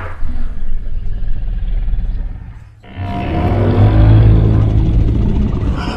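Film sound effect of a Mamenchisaurus call: two deep, rumbling calls. The first fades out about two and a half seconds in, and the second, louder one begins a moment later and carries on with a wavering pitch.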